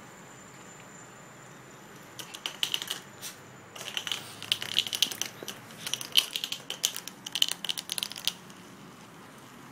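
Bursts of rapid, light clicking and clattering on a tile floor as a puppy plays with a small toy, starting about two seconds in and stopping about eight seconds in.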